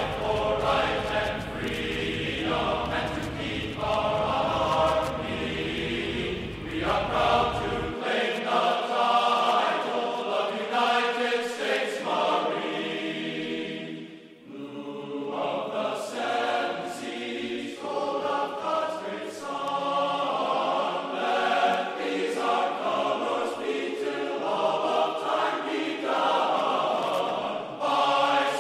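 Choral singing laid over the video as background music. A low steady rumble sits under it and cuts off abruptly about eight seconds in. The singing drops away briefly about halfway through, then carries on.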